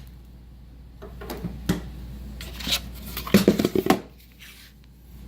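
Metal clinks and small knocks as an Allen key works a leveling screw in a module's T-nut, with a quick cluster of knocks about three and a half seconds in.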